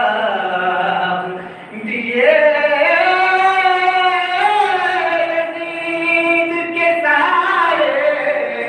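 Soz-khwani: a male reciter singing a soz-o-salam unaccompanied into a microphone in long, drawn-out melodic notes. After a short breath about one and a half seconds in, he holds one note for about five seconds before starting a new phrase.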